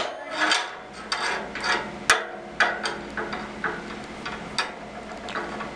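An irregular run of light knocks and clicks, about two a second, thinning out toward the end, with one sharp click about two seconds in.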